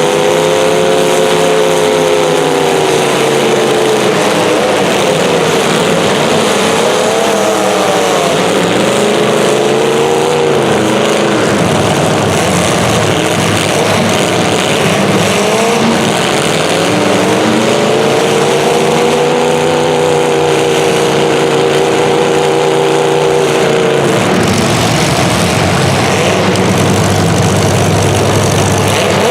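Racing engines running continuously during a heat, their pitch climbing and falling again and again as the vehicles accelerate and slow around the course. After about 24 seconds the sound turns lower and steadier.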